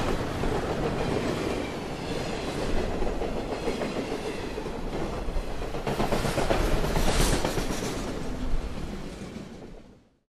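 A train running past on rails, a rumble with wheel clatter, loudest about six to eight seconds in, then fading out to silence near the end.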